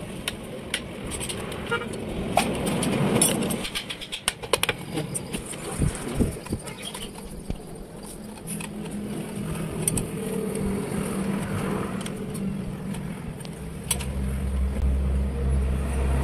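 Sharp metallic clinks and knocks of hand tools working on a steel truck leaf spring, most of them in the first half. From about halfway a motor vehicle engine runs steadily, with a deeper rumble joining near the end.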